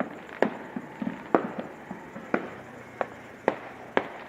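Fireworks and firecrackers going off: a string of sharp bangs at irregular intervals, about two a second.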